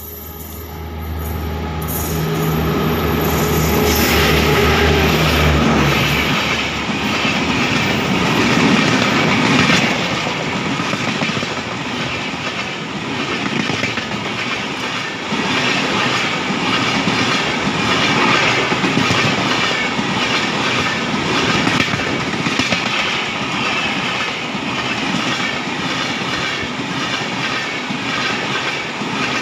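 Express train passing at speed close by: a low hum for the first few seconds as the locomotive goes past, then a steady rush of coaches with fast rhythmic clatter of wheels over rail joints.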